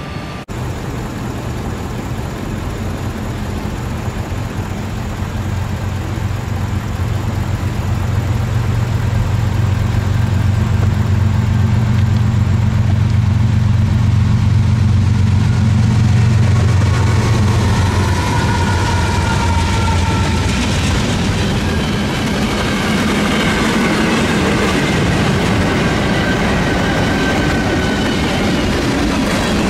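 Norfolk Southern diesel locomotives on a fast freight train approach and pass, their engine drone swelling to its loudest about halfway through. The drone then gives way to freight cars rushing past, with wheels clattering on the rail joints and a faint high whine from the wheels.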